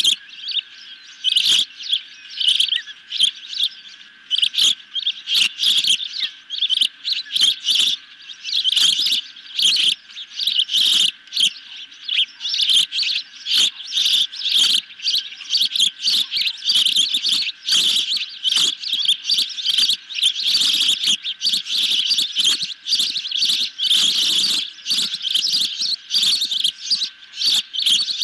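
Ospreys on the nest chirping: loud, high, piercing calls repeated in quick runs, one after another with no real break.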